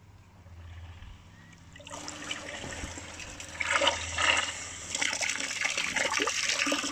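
Water churning and splashing as a submerged 3D-printed centrifugal pump, driven by a 24 V drill motor run on 12 V, starts up at low speed and pushes water up its PVC outlet pipe. The water noise starts about two seconds in and grows louder.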